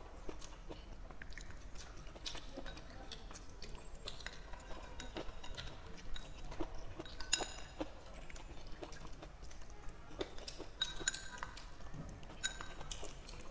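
Close-miked chewing and biting of stir-fried green chili and pork, with a few short ringing clinks of chopsticks against the porcelain bowl, the clearest a little past the middle and near the end.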